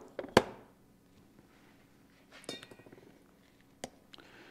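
Metal parts handled on a workbench: a sharp clink shortly in, a short ringing clatter about halfway, and another click near the end, as a metal seal driver is set onto the PTO's hub adapter with a new seal.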